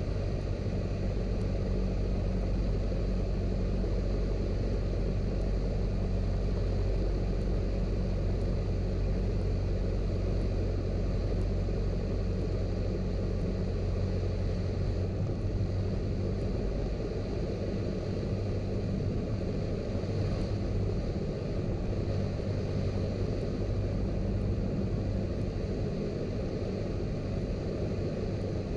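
Cessna 172's piston engine and propeller droning steadily in flight.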